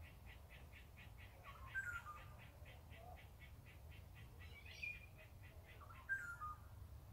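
Wild woodland birds calling: a steady run of short high notes, about five a second, with a louder down-slurred whistled phrase near two seconds and again near six seconds, and a brief higher call just before five seconds.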